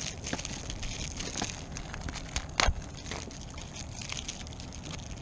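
Water lapping and sloshing against a kayak, with small clicks and knocks of handling gear and one sharp click about two and a half seconds in.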